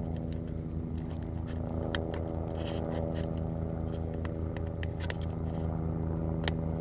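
A steady idling engine hum with a fast, even pulse, over scattered sharp crackles and pops from a small wood fire.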